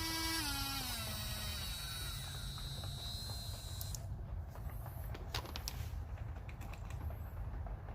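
Rotary tool motor whining, then dropping in pitch about half a second in and winding down over the next second or so, as the speed setting is changed. A high whine cuts off suddenly about four seconds in, followed by light clicks and knocks of the tool being handled.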